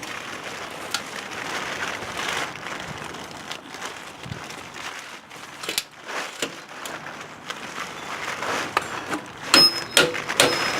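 Irregular scraping and rubbing on the rusty steel parts of a snow plow mount, with scattered clicks. Near the end come several sharp, ringing hammer blows on metal.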